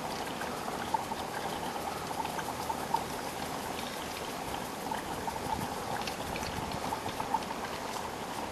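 Cornish cross chicken bubbling away in a Dutch oven over a burner: a steady simmer with many small pops.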